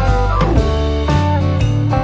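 Background music led by guitar, with notes changing every half second or so over a bass line.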